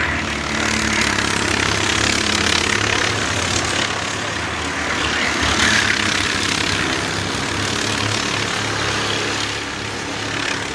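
Several racing go-kart engines running at speed as a close pack of karts passes, the sound swelling and easing, loudest about six seconds in.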